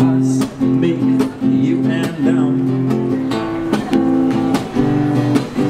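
Background music: a track led by strummed guitar chords with a steady rhythm.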